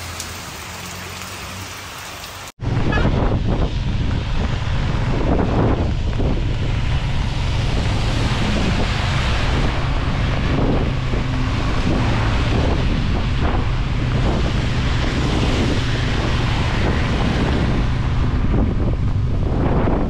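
Loud, steady wind rush on the microphone of a moving motorcycle, with a low engine drone underneath. About two and a half seconds in, it follows an abrupt cut from a quieter hiss.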